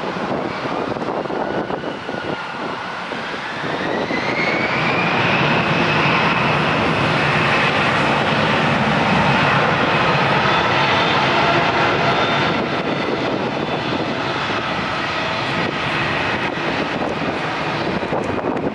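The Airbus A320-211's two CFM56-5A1 turbofans spool up to takeoff thrust, with a whine rising in pitch about four seconds in. They then run steadily and loudly through the takeoff roll.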